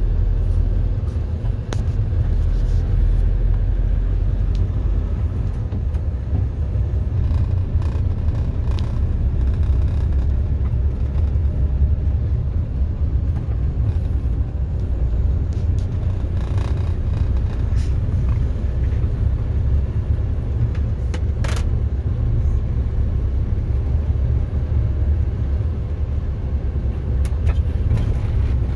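Car driving along a road, heard from inside the cabin: a steady low rumble of engine and road noise, with a few small clicks and knocks.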